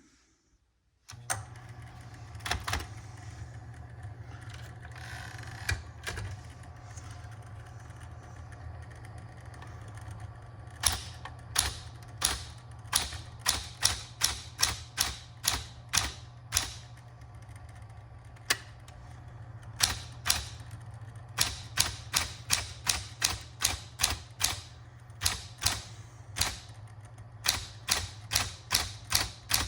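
Smith-Corona Electra 120 electric typewriter: its motor comes on about a second in and hums steadily, then the keys strike the platen, a few at first and then in quick runs of typing, several strokes a second.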